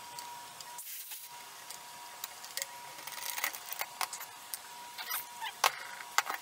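Irregular metal clicks, clinks and knocks of a Harbor Freight resin pressure pot being opened: its wing-nut lid clamps swung free, the lid lifted off and the resin-filled mold taken out.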